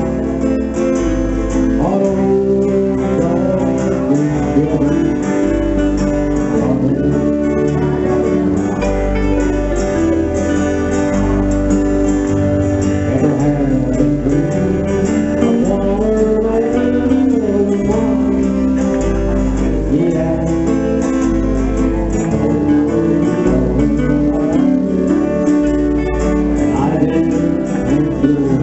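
A small country band playing live: two acoustic guitars strummed over an electric bass line that changes note about once a second, with an electric guitar.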